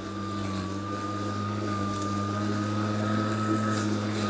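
Atlas 80V cordless brushless 21-inch self-propelled lawn mower running as it is pushed through grass: a steady electric hum with a thin high whine that rises slightly in pitch.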